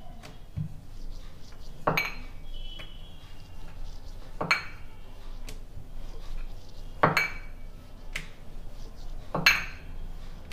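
Wooden rolling pin rolling out a small disc of dough on a hard countertop, with four sharp knocks about every two and a half seconds as the pin and hands strike the counter.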